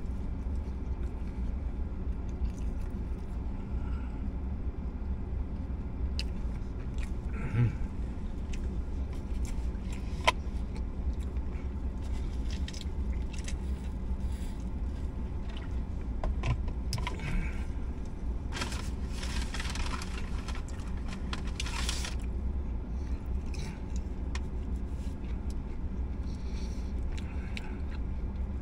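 Chewing and crunching on a crispy fried chicken sandwich, with small clicks and rustles, over a steady low rumble inside a car. A louder hissing, rustling stretch lasts a few seconds about two-thirds of the way in.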